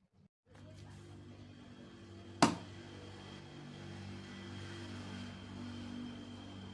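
A steady low hum with a few held tones starts about half a second in. A single sharp click or snap comes about two and a half seconds in.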